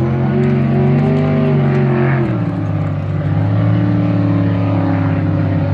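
Racing boat's engine running steadily, its pitch dropping a step about two seconds in.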